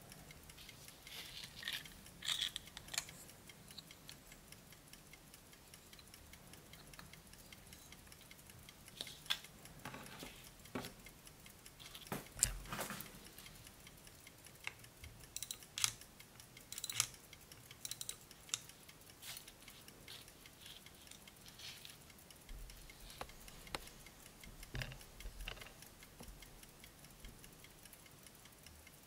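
Antique key-wound pocket watch ticking steadily and fast. Louder irregular clicks and knocks come from the case being handled and its back cover opened.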